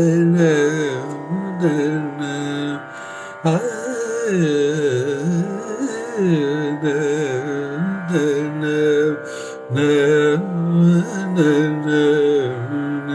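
A man singing in the Indian classical style in raga Kappi (Peelu), with slow, ornamented melodic lines that glide and bend in pitch over a steady drone. He breaks off twice for a moment, about a quarter of the way in and again about three-quarters of the way in.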